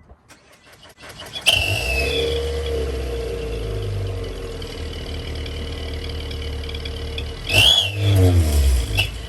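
2020 Nissan Altima engine starting with turbo whistles fitted in the exhaust tips: it catches about a second and a half in with a brief flare and a falling whistle, then settles to a steady idle. Near the end a blip of the throttle brings a surge with a whistle that rises and falls.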